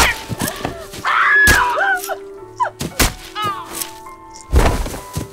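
Horror-film attack sound design: several sharp thuds and whacks, the heaviest about four and a half seconds in, among short cries that bend up and down in pitch, over a held musical drone.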